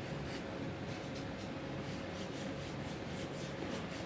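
Faint, irregular swishes of a watercolour brush stroking a wash across wet paper, over a steady low room hum.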